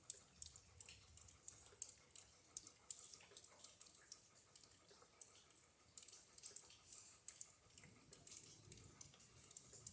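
Faint rain dripping and pattering during a thunderstorm: irregular light ticks throughout.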